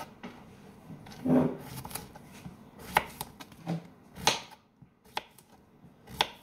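Kitchen knife slicing through a cucumber onto a wooden cutting board: a handful of sharp, irregularly spaced chops.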